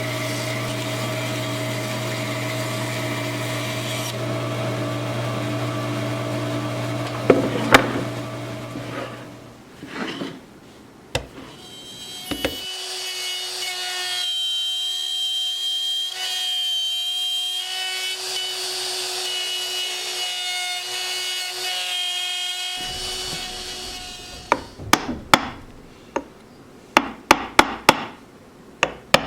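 Power carving tools working wood: one tool runs steadily with a low hum, then after a short pause a higher-pitched tool runs for about ten seconds. A run of sharp taps follows near the end.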